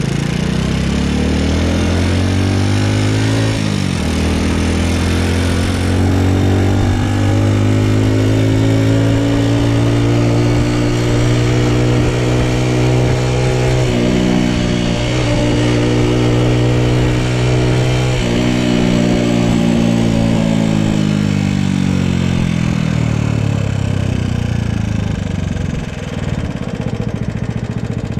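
Honda Super Cub's single-cylinder four-stroke engine under way. It revs up in the first few seconds with a brief dip about three and a half seconds in as it changes gear, holds a steady pitch through the middle with short breaks around fourteen and eighteen seconds in, then falls away as the bike slows.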